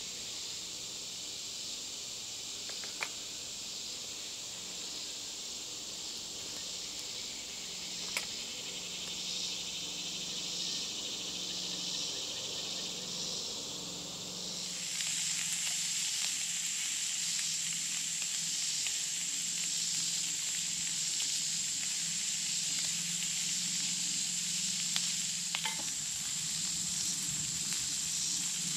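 Summer forest insects buzzing steadily: a constant high-pitched drone with a rhythmic pulsing chirp over it. A few faint clicks, and the buzz gets louder and brighter about halfway through.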